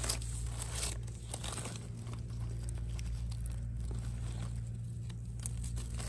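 Dry leaf litter rustling and crinkling as a hand parts the leaves and picks small wild mushrooms, with scattered light clicks over a steady low rumble.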